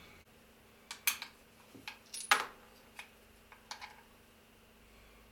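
Scattered sharp clicks and light clinks of a sewing-machine electric motor's plastic housing and small metal parts being handled and taken apart by hand with a tool, the loudest a little over two seconds in.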